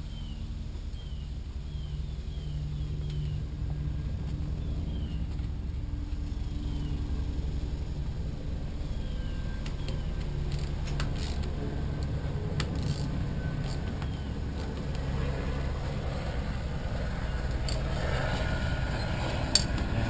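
A steady low engine rumble, with a few sharp clicks about halfway through and faint, short high chirps over it.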